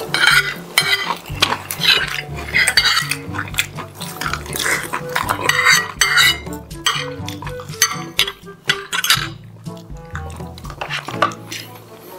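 Metal spoons and forks clinking and scraping against ceramic plates while eating, in quick irregular clicks throughout.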